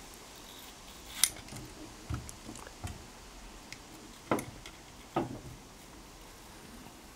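Phosphor bronze wire brush on an extension rod scrubbing soot out of the small boiler tubes of a coal-fired model locomotive, with scattered metallic clicks and scrapes. The sharpest click comes about a second in, and two louder scrapes come near four and five seconds.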